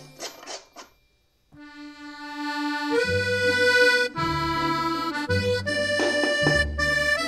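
Background music: held chords over a bass line, coming in about a second and a half in after a short gap.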